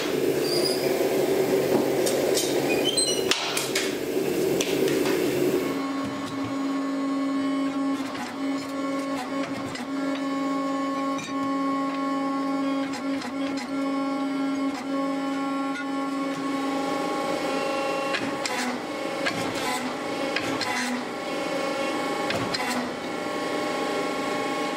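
A gas forge burner running with a steady rushing noise for about the first six seconds. It then gives way to the steady hum of a hydraulic forging press's pump motor, with a few light clanks.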